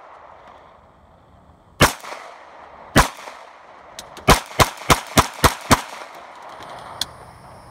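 Glock 43X 9mm subcompact pistol fired eight times, each shot followed by a short echo: two single shots about a second apart, then a quick string of six at about three shots a second.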